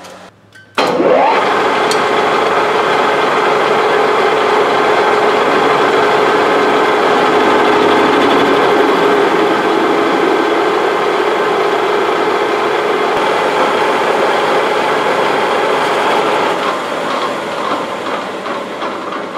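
Engine lathe with a geared headstock starting up: a short rising whine about a second in as the spindle, on freshly installed bearings, comes up to speed, then a steady run while the tool takes a test cut on a steel bar. The sound eases off near the end.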